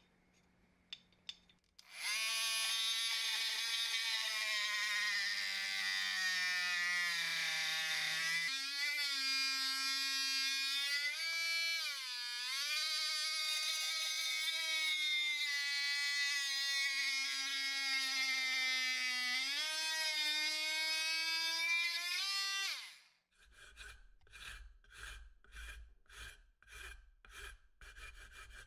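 Small electric power tool motor whining at high speed for about twenty seconds, its pitch sagging and recovering several times as it is loaded against the work, then cutting off. Near the end, steady hand-sawing strokes follow, about two a second.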